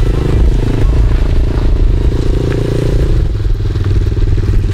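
Honda CRF110 pit bike's small single-cylinder four-stroke engine running at low speed as the bike rolls along, dropping to a slower, more even beat about three seconds in as the throttle eases off.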